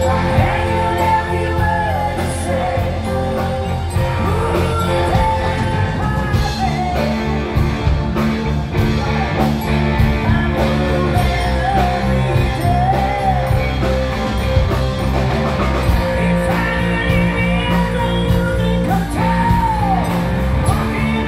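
Live rock band playing: a woman sings the lead melody over electric guitar, electric bass and a drum kit keeping a steady beat.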